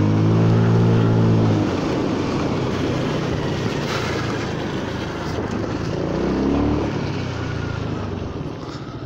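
Honda Forza 300 scooter's single-cylinder engine pulling away, its pitch climbing for the first second or so. It then cruises under a steady hiss from the tyres on the wet road, and the revs climb again about six seconds in.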